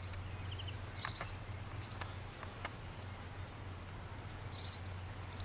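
Birds chirping: repeated short, high calls sliding downward in pitch, with a few sharp clicks about one and two and a half seconds in, over a steady low hum.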